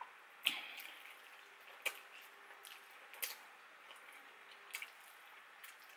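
Wet mouth sounds of someone eating a sticky sweet and sour chicken wing: a few sharp, short smacks and squishes, roughly one every second or so, over faint room tone.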